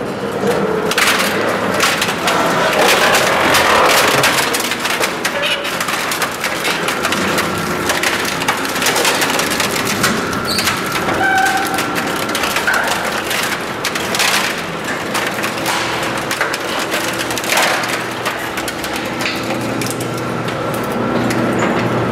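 Komar EM-40G auger compactor's screw auger crushing a pallet and exercise-equipment tubing: continuous irregular crunching, cracking and splintering over a steady machine hum.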